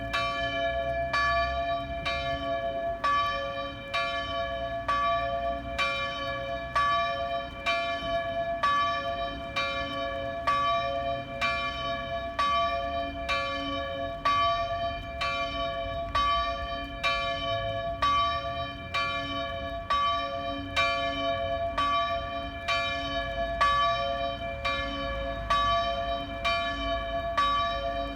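A church bell ringing, struck about once a second. Each stroke rings on with the same steady tones into the next.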